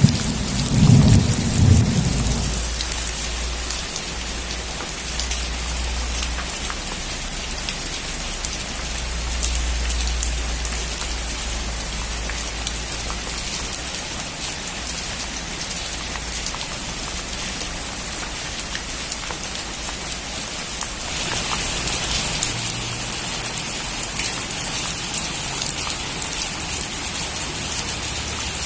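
Heavy rain pouring on a metal roof, with a rumble of thunder in the first couple of seconds. The rain grows louder and brighter about 21 seconds in.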